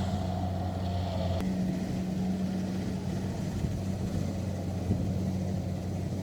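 Kubota DC-70 rice combine harvester's diesel engine and threshing machinery running steadily while harvesting rice. About a second and a half in, the deep low hum drops away suddenly and a thinner steady drone carries on.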